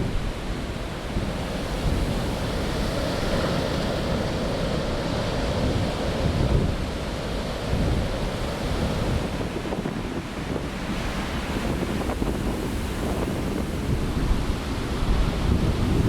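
Heavy winter storm surf breaking and rolling in a steady, loud rumble, with wind buffeting the microphone.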